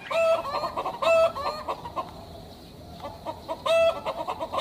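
Chickens clucking in quick runs of short calls, one run in the first second and a half and another near the end.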